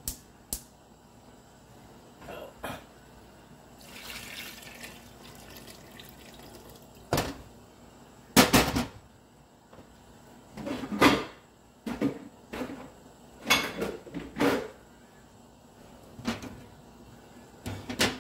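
Broth poured into a pot of seasoned oxtail as a soft splashing rush, then a run of loud clanks and knocks of cookware and utensils against the pot.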